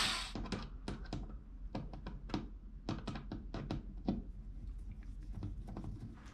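A cordless drill cuts off right at the start, followed by a scattered run of light clicks and knocks from tools and small parts being handled inside a plastic kayak hull.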